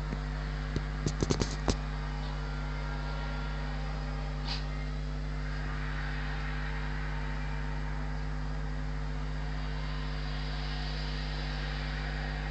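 Steady mechanical hum, like a fan or motor running. A quick run of five or six sharp clicks comes about a second in, and one faint, short puff of hiss comes a few seconds later.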